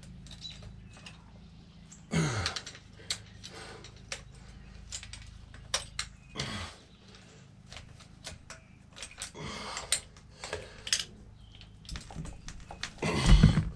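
Hand tools working on a motorcycle: irregular sharp clicks and taps, with two short falling-pitch squeaks and a heavy thump near the end.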